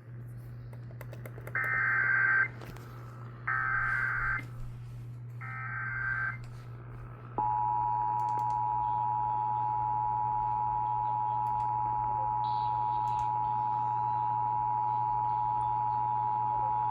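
Emergency Alert System activation heard over a radio broadcast: three short bursts of SAME digital header data coding a severe thunderstorm warning, then the EAS two-tone attention signal, which starts about seven seconds in and holds steady. A steady low hum sits underneath.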